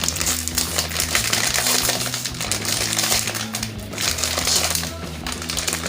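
Plastic instant-noodle packet crinkling and crackling as it is pulled and torn open, with background music playing under it.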